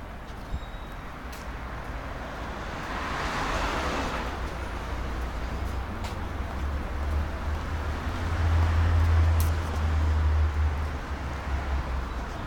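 City street traffic noise: a vehicle passes about three to four seconds in, and a deep low rumble swells in the second half, loudest around nine seconds.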